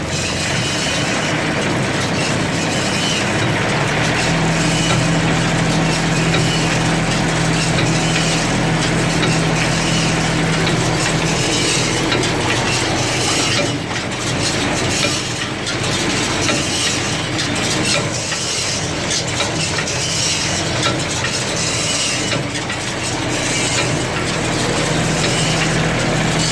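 Ford 501 square baler running empty off the tractor's PTO, its chains, drives and plunger keeping up a steady mechanical clatter with metallic clinking, over the steady running of the John Deere 790 tractor's diesel engine.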